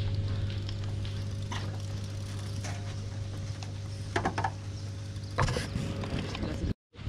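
Steady low electric hum of a lake aerator's motor, with a few short scratchy noises over it. The sound cuts out for a moment near the end.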